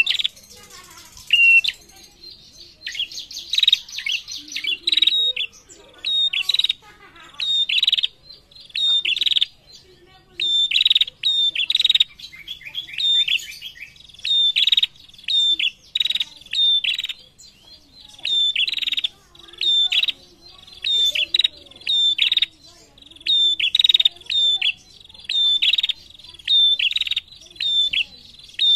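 Female prenjak (a small warbler kept as a songbird) calling loudly in its cage: a steady run of sharp, high, repeated chirps, one every half second to second, with a quick rattling trill now and then.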